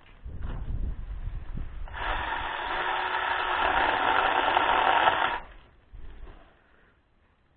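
Battery-powered one-handed mini chainsaw running at full speed for about three and a half seconds as it cuts an apple branch, then stopping abruptly; some low rumble and handling noise before it starts.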